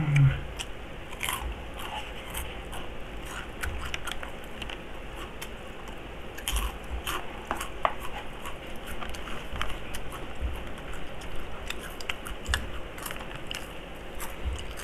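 Chicharon (crispy fried pork crackling) being bitten and chewed close to the microphone: many short, irregular crisp crunches.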